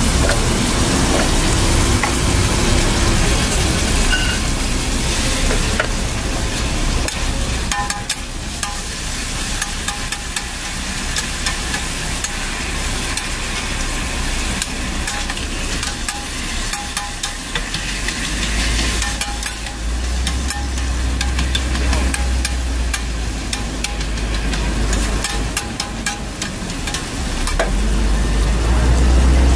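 Food sizzling and frying on a flat-top griddle, with many sharp clicks and scrapes of a metal spatula and tongs against the hot plate. A low rumble swells underneath now and then in the second half.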